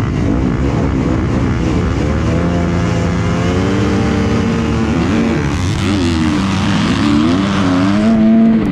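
A field of 450-class motocross bikes revving hard at the start gate, many engines held at high revs together, then pulling away with their pitches climbing and dropping through the gears; the nearest engine is loudest near the end.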